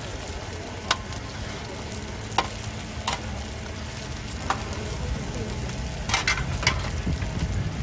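Mussel-and-egg pancakes (hoi tod) sizzling in shallow oil on a large flat wok, with sharp clinks of two metal spatulas against the pan every second or so and a quick run of them near the end.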